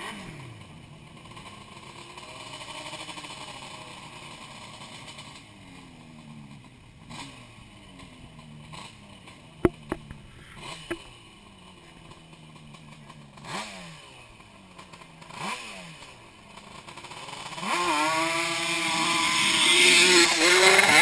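ATV engines revving up and down in the distance, then one quad's engine grows loud and revs hard as it climbs a steep dirt hill toward the microphone near the end. A few sharp clicks about ten seconds in.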